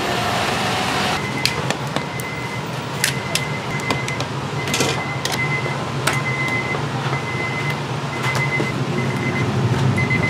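An electric hand mixer whirs in a steel bowl of batter and stops about a second in. After that, metal tongs clink now and then against the steel bowl over a steady low hum, with a faint high tone that comes and goes.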